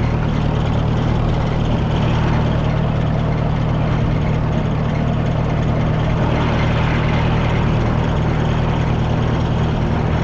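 Oliver 101 Plowmaster garden tractor's engine running steadily as it drives over wet ground, with a squeak that comes from the battery box rather than the belt.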